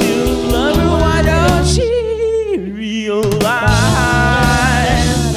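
Blues song recording playing an instrumental stretch: a lead line of bending, wavering notes over a steady beat. The beat drops out for about a second midway while a held note bends downward, then comes back.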